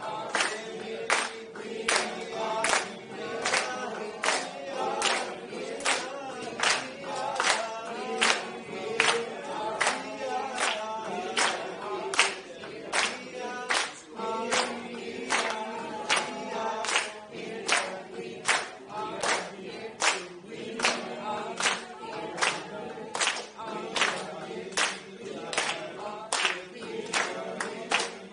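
A group of voices singing a cappella, kept in time by steady unison handclaps at about five claps every four seconds.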